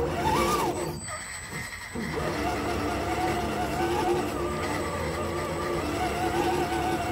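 Electric motor and gear drive of an RC crawler whining as it drives. The pitch rises and falls back once near the start, the sound dips briefly about a second in, and it then settles into a steady, slightly wavering whine.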